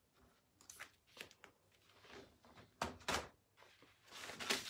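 Sticky plastic silkscreen transfer being handled on a chalkboard: a few brief rustles and taps, then a longer rustling as the sheet is lifted off the board near the end.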